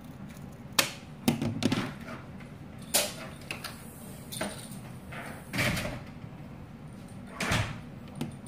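Irregular sharp knocks and clicks, about six in all, some with a short scrape after them: hands handling wooden cake-support dowels and tools.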